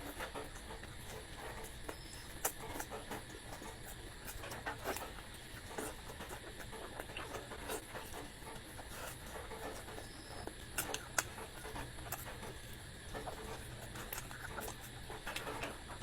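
A person eating close to the microphone: irregular wet chewing and mouth clicks over a steady low hum.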